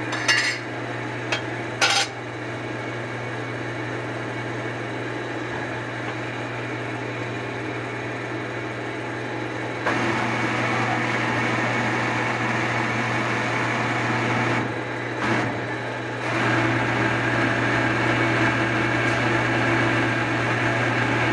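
Steady low machine hum in a metal shop, with two sharp metal clinks in the first two seconds. About halfway through a louder steady rushing noise joins in; it drops out for a second or so, then comes back.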